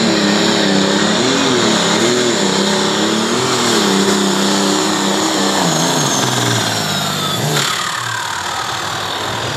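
Light limited super stock pulling tractor's turbocharged diesel engine under full load dragging the sled, its pitch surging up and down. About six seconds in the pitch falls away and the engine drops off, with a high turbo whine winding down, as the tractor bogs to the end of its pull.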